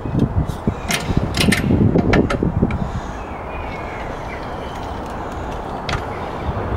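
Metal clicks and clunks from a hydraulic trolley jack being worked by its handle and let down under a car's rear axle, clustered in the first few seconds, over a steady low outdoor rumble.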